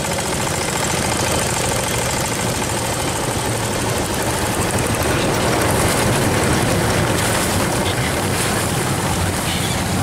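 Long-tail boat's motor running steadily at speed, with the rush of water and wind along the hull.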